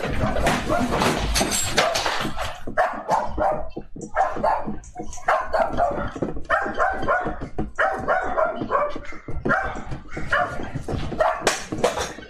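Rumbling and rattling as a room shakes in an earthquake for about the first two seconds, then a dog barking over and over.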